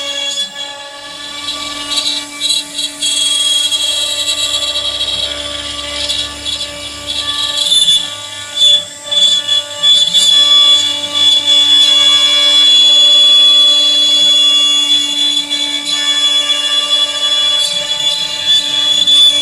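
CNC router spindle whining steadily while its bit carves ash wood, the cutting noise rising and falling as the tool moves through the cut.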